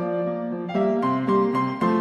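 Background music: a keyboard playing a steady run of notes.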